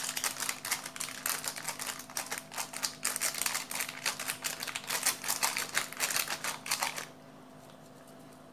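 Small plastic spice sachet of ground black pepper crinkling as it is squeezed and shaken over the bowl: a dense run of quick crackly clicks that stops about seven seconds in.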